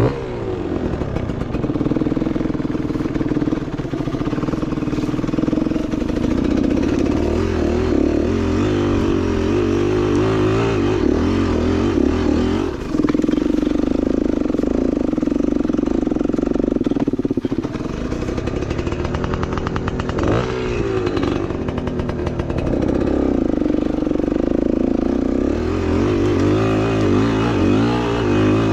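Enduro dirt bike engine running under load, its revs rising and falling as the bike traverses a steep slope, with a brief rev sweep about two-thirds of the way through.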